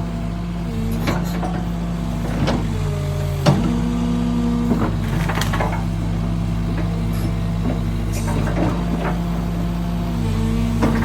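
Heavy diesel demolition machinery running steadily. Its engine note drops and then rises sharply about three seconds in, with scattered knocks and cracks of debris throughout.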